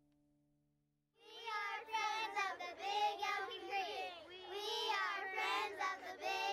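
Several children singing together without accompaniment, starting about a second in after a brief silence.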